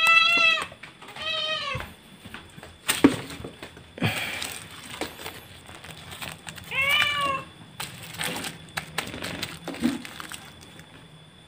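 Domestic cat meowing three times: once right at the start, again about a second and a half in, and a last meow about seven seconds in. A few sharp knocks and clatters fall in between.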